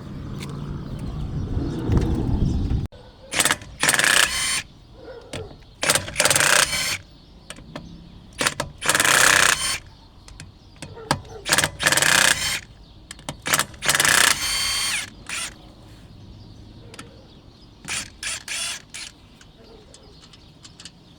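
Hand ratchet wrench clicking in a dozen or so short spells, on and off, during front brake work. A low rumble comes before the first spell.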